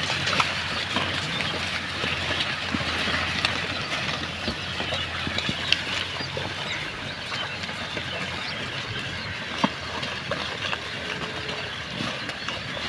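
A herd of pigs rooting and chewing through plastic-strewn garbage: a dense, steady crackle and rustle of litter with scattered sharp clicks, over a steady low rumble.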